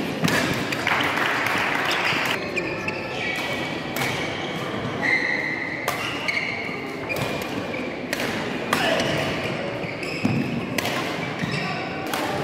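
Badminton play in a large sports hall: sharp racket strikes on the shuttlecock and footfalls on the court, with voices in the background.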